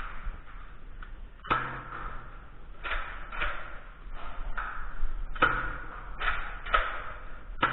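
Nerf blasters firing foam darts: a string of sharp pops and thwacks, about one a second, from about a second and a half in. Some carry a deeper thump.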